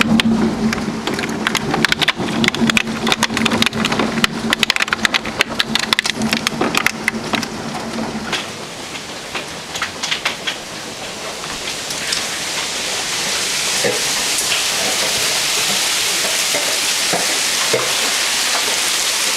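Large hailstones pelting down in a dense, rapid clatter of impacts for about the first eight seconds, then giving way to the steady hiss of a torrential downpour that builds and holds toward the end.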